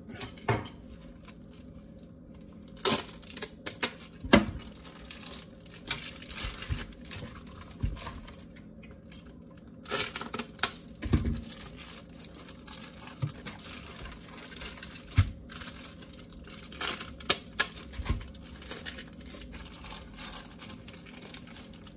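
Kitchen handling noises: scattered knocks and clicks with stretches of crinkling, over a steady faint hum.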